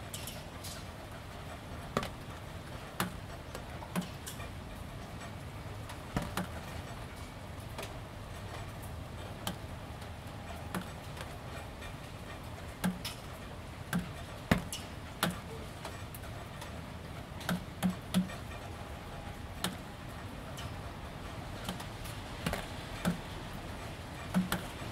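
Gentle rain, with drops falling irregularly onto wet corrugated plastic roof panels: sharp ticks at uneven intervals, roughly one or two a second, over a soft steady hiss of drizzle.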